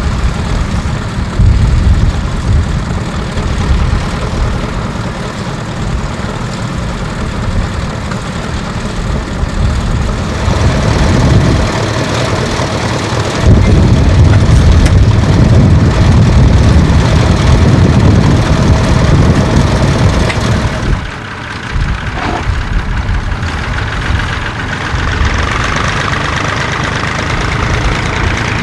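Tractor engine running steadily under load, growing louder about halfway through and easing briefly a little later.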